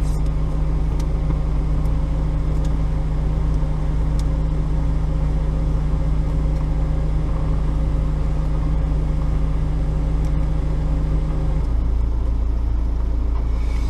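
Steady low machine hum with a held tone above it that cuts off near the end, about twelve seconds in.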